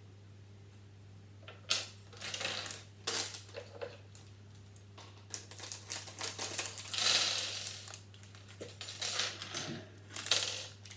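Small plastic Lego pieces clinking and clattering against each other in irregular bursts as they are handled and sorted by hand, over a steady low hum.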